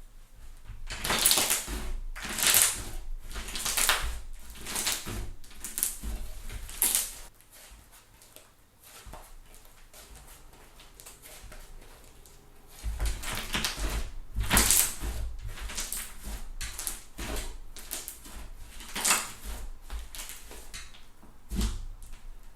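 Thick fluffy slime squeezed and stretched by hand, crackling with sharp pops of trapped air. The pops come in two runs, with a quieter stretch of a few seconds between them.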